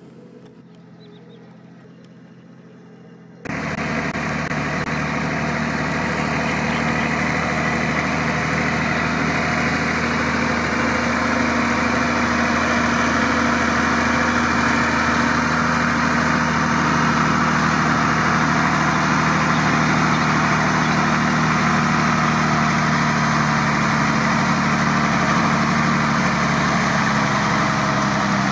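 Low, quiet background for the first few seconds, then suddenly a Mercedes-Benz Unimog truck's engine running steadily with a constant low drone as the truck drives through shallow water and mud.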